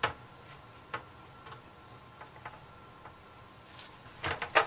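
Hands squeezing a wet ball of minced chicken mixture: a few faint, irregular clicks, then a cluster of louder squishes near the end.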